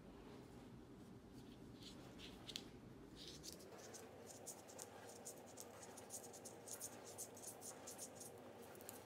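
Faint light clicking and scratching of circular knitting needle tips as stitches are knit, quick ticks coming several a second from a few seconds in, with a few single ticks before.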